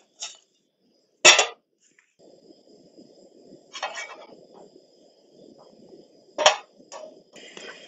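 Portable gas camp stove with a frying pan on it: a sharp metallic clank about a second in, then a low steady rush of the lit burner from about two seconds in, with a spatula clinking against the pan a few times later on.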